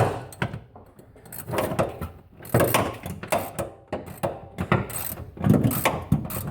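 Floor jack being pumped under a Miata's lower control arm, pushing the new coilover up into its mount: repeated mechanical clunks and ratcheting clicks, roughly one stroke a second.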